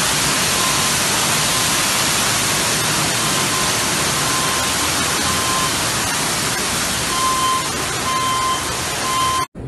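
Water gushing down through a collapsed ceiling from a burst pipe, a loud steady rush, with a faint high tone coming and going. The rush cuts off suddenly just before the end.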